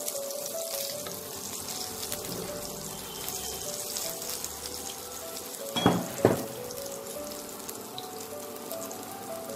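Mustard oil sizzling in a wok, with nigella seeds and green chillies frying in it, under soft background music. Two sharp knocks come close together about six seconds in.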